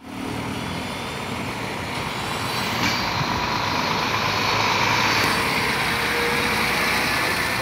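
Steady vehicle noise: a running engine with the rumble and hiss of traffic, growing a little louder around the middle.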